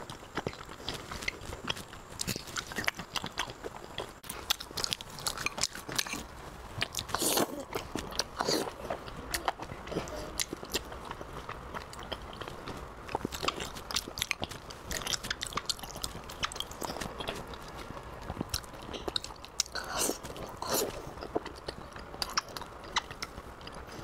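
Close-miked chewing of glazed pork belly: a dense, irregular run of short mouth clicks and smacks.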